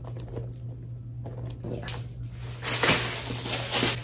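Crinkling, rustling handling noise as a purse and its wrapping are handled. It is faint and clicky at first and grows dense and loud in the last second and a half.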